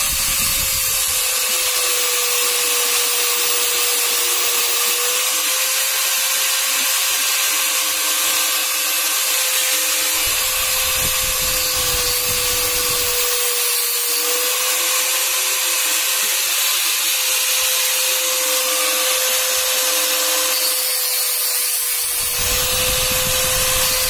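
Electric angle grinder running steadily with a constant whine, its disc grinding against a metal headlight ring.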